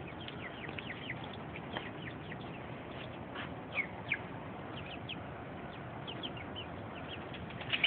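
Birds chirping: many short, high, falling chirps scattered through, a couple of them louder, over a steady background hiss.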